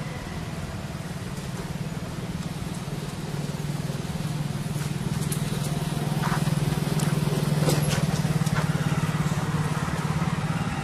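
A motor vehicle engine running steadily, growing louder about halfway through, with a couple of short sharp clicks.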